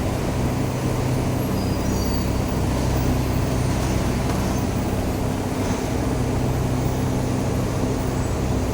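Steady machine hum with a stack of low, even tones, which fits the electric motor of a 5 kW air compressor running without a break.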